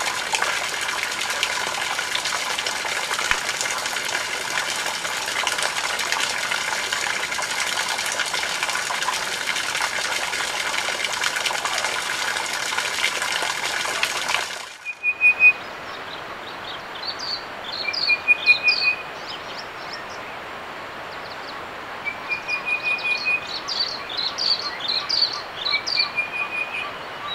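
Water jet from a fountain's spout splashing steadily into a stone basin. About fifteen seconds in the splashing cuts off abruptly, leaving a quieter background with birds chirping and a short trill repeated four times.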